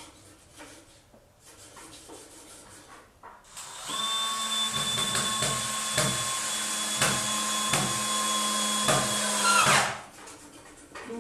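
Electric drill starts a few seconds in and runs steadily for about six seconds, with a regular click roughly twice a second. The motor then spins down and stops.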